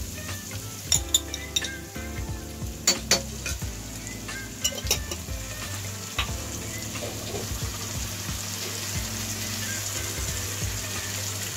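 Vegetables sizzling in hot oil in a wok, with a run of sharp clinks and taps from a metal spoon in the first six seconds or so as Schezwan sauce is scooped from a jar into the pan. After that the sizzling runs on steadily by itself.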